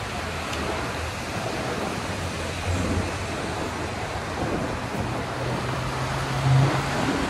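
City street traffic: a steady rush of passing vehicles with a low engine hum that grows louder about five seconds in.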